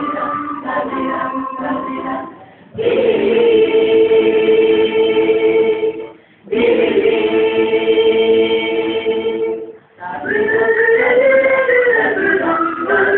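Women's a cappella choir singing in harmony. A moving melodic line gives way, about three seconds in, to two long held chords, each cut off by a short break, before the melody picks up again near the end.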